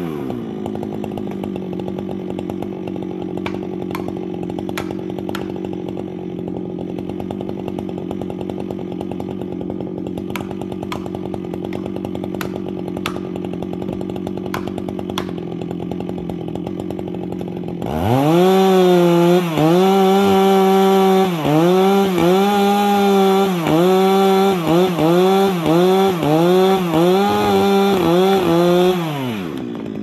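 Husqvarna chainsaw settling to idle, then opened to full throttle about two-thirds of the way through, its pitch dipping again and again as the chain bites into the oak trunk, before it drops back to idle near the end.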